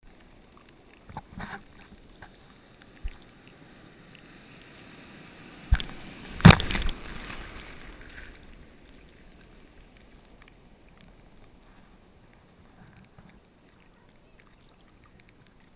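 Breaking surf and whitewater splashing over an action camera held in the waves: scattered knocks and splashes, the loudest hits about six seconds in, followed by a couple of seconds of rushing foam that fades away.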